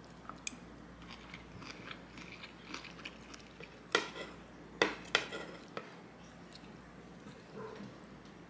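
Metal spoon scooping food from a wooden bowl, scraping and clicking against it, with three sharp clicks about four to five seconds in. Soft chewing between the scoops.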